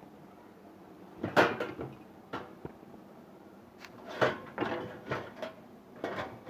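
Several knocks and rattles of a door or drawer being opened and shut, the loudest about a second in, followed by a string of lighter knocks.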